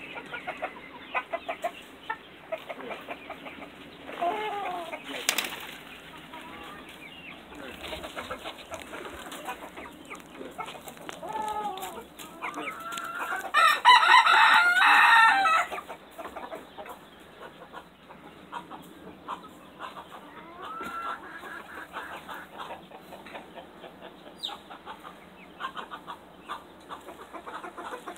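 Backyard chickens clucking, with scattered clicks and rustles. A rooster crows loudly for about two seconds near the middle.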